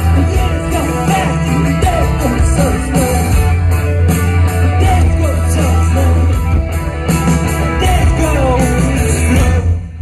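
Live rock band playing loudly, with electric guitars, bass, drums and singing, heard from the audience. The music drops away near the end as the song finishes.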